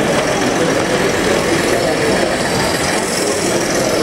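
Large-scale model passenger train running past on its track, a steady running noise over an even background hum.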